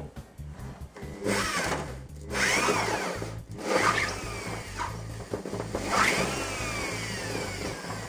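Electric drill boring a hole through the hard plastic of an ebb-and-flow grow table, in several bursts whose whine rises and falls as the trigger is squeezed and eased, over background music with a beat.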